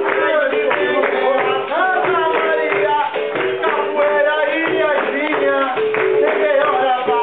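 Live capoeira roda music: berimbau and percussion with group singing and rhythmic hand-clapping.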